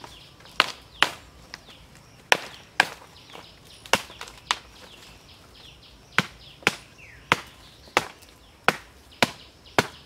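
A long-handled blade chopping into green bamboo poles to split them lengthwise. Sharp hacks come about once or twice a second, often in pairs.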